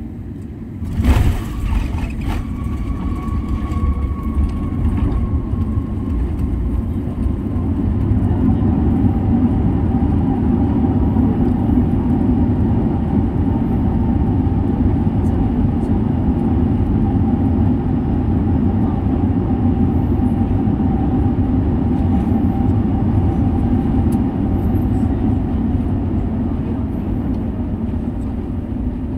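Airbus A380 main gear touching down with a thump about a second in and a second knock just after, then the rumble of the wheels on the runway under a roar that builds over several seconds and holds, typical of the engines spooling up for reverse thrust on the landing roll, with a faint whine sliding slowly down in pitch. Heard from inside the cabin over the wing.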